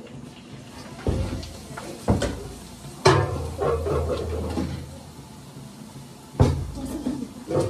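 Kitchen clatter: cupboard doors and pots knocking, about five sharp knocks spread out, the loudest about three seconds in, with a low rumble after it.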